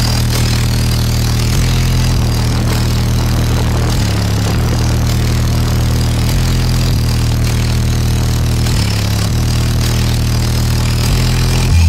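Bass-heavy music played very loud through a car audio system of six Rock Series subwoofers, deep bass notes that hold for a second or so and then step to another pitch. At the very end a falling bass sweep begins.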